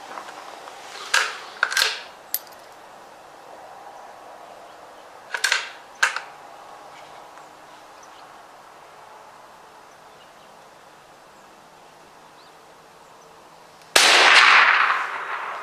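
.22 LR rifle shots: sharp cracks in two close groups, about a second in and again about five and a half seconds in, then a much louder shot near the end that rings on for over a second.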